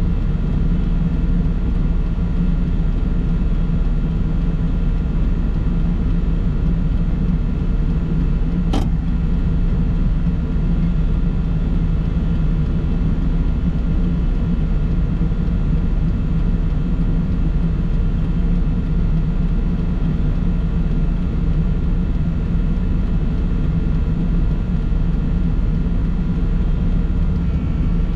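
Steady low rumble of a vehicle driving along a road, engine and tyre noise together, with a single brief click about nine seconds in.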